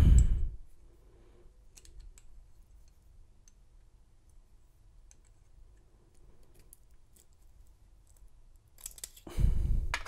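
Faint, scattered small metallic clicks and ticks as a plug follower is worked into a brass padlock cylinder, with a thump at the start and a louder clatter near the end, where loose lock pins spill out.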